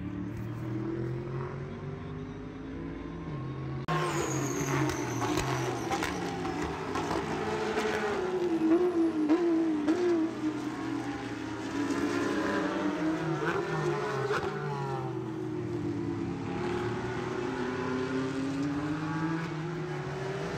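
Motor engines running, their pitch rising and falling every few seconds as if revving or passing by; the sound gets louder and brighter about four seconds in.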